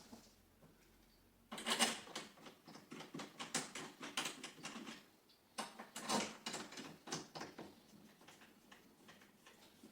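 Irregular clicks and knocks of hand work on an outrigger's metal bar and bracket hardware as screws are fitted. They start about a second and a half in, come thick and fast for several seconds, then thin out near the end.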